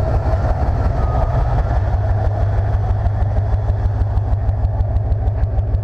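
1995 Chevy C/K 1500 pickup's engine idling steadily, with an even, fast pulsing beat.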